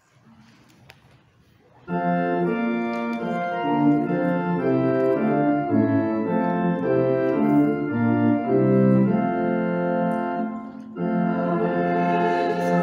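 Organ begins playing a hymn tune about two seconds in, in sustained chords with changing notes, breaks off briefly near the end, then goes on.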